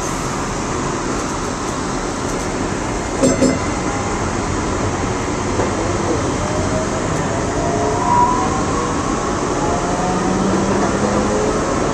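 DART light rail train running, heard from inside the front cab: a steady rumble of wheels on rail, with the electric traction motors' whine gliding upward in pitch through the second half as the train picks up speed. A short knock about three seconds in.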